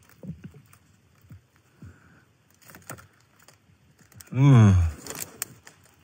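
A foil-lined crisp packet rustling and crinkling in faint, scattered crackles as a small rodent moves and feeds inside it.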